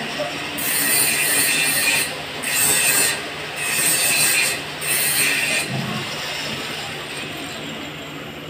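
Paint roller on an extension pole rolled up and down a wall: four loud strokes about a second apart, fading away after about six seconds.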